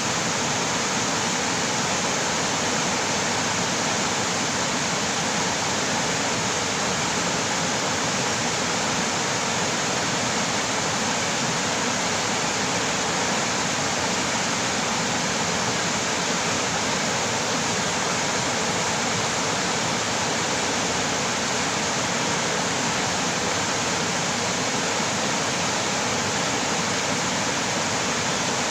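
Mountain stream rushing over rocks: a steady, full rush of water that does not change.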